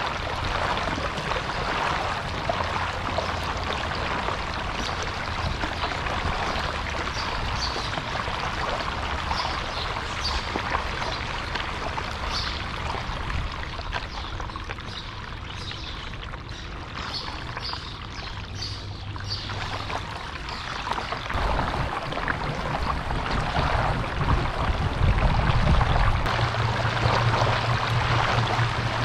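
Water sloshing and trickling against a kayak's hull as it is paddled, with small splashes from the paddle strokes. A low rumble grows over the last few seconds.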